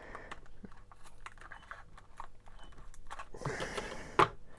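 Packaging of a Smashers toy being opened by hand: crinkling and crackling of the wrapper with many small sharp clicks, a louder rustle about three and a half seconds in and a sharp click just after.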